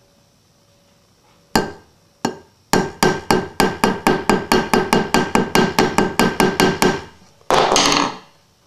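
Small ball-peen hammer tapping a folding knife's pivot pin, with the knife resting on the steel head of a claw hammer as an anvil: two single taps, then a quick even run of light, ringing metal-on-metal taps about four a second for some four seconds. The taps peen the pin to take up the blade play. A short scraping rattle follows near the end.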